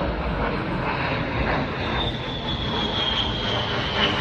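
Military aircraft engine noise, steady and loud, with a high whine that slowly drops in pitch from about halfway through.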